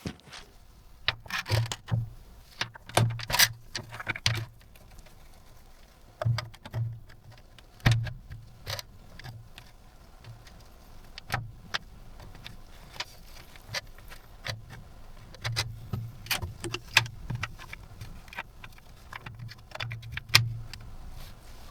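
Irregular sharp clicks and clacks of plastic keyboard keycaps being handled and pressed, in clusters, over soft low knocks.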